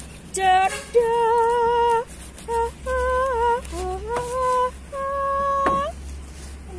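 A woman singing a slow, unaccompanied melody of long held notes that waver and slide between pitches, the last one, near the end, bending upward as it stops; a low steady hum lies underneath.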